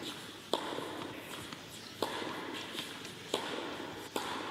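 Low murmur of a hall full of people, broken by four sharp knocks or taps at uneven intervals.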